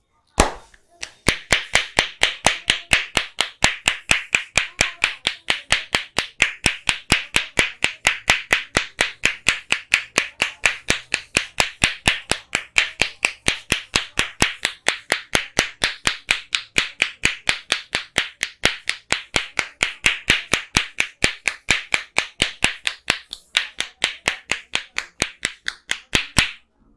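A barber's hands striking the head in a fast, even percussive head massage, sounding like clapping, about four strikes a second. There is a brief break once past the middle, and the strikes stop just before the end.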